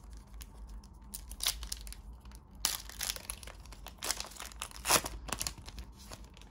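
A Panini Prizm basketball card pack's wrapper being torn open and crinkled by hand: a run of irregular short crackles, loudest about three and five seconds in.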